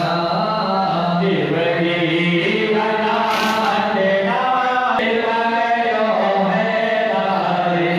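Devotional chanting: sung voices moving from note to note over a steady low drone.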